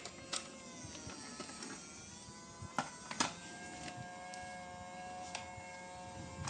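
Small electric motor whining, as in a battery-powered toy. Its pitch sinks and wavers over the first two seconds, then holds steady, with scattered sharp clicks and taps over it.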